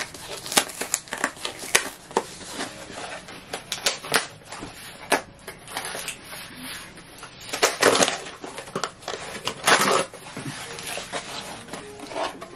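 Brown cardboard book mailer being torn open and unwrapped: a dense, irregular run of tearing, crinkling and crackling, with two louder bursts about eight and ten seconds in.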